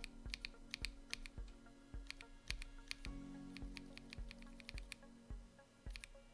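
Typing sound test on a mechanical keyboard fitted with Akko POM switches, all-POM housings and stems: a quick, uneven run of sharp keystroke clacks, several a second, with a short break near the end. Background music plays underneath.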